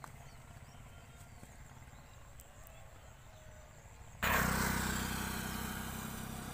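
Quiet outdoor background, then about four seconds in a sudden loud stretch of motorcycle engine noise, a steady low hum with a rushing hiss above it, slowly fading.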